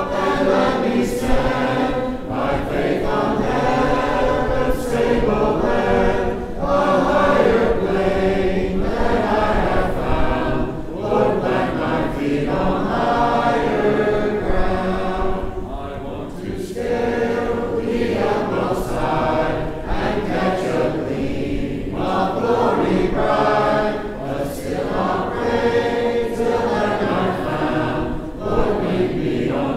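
A church congregation singing a hymn together, many men's and women's voices unaccompanied, in the a cappella style of a Church of Christ.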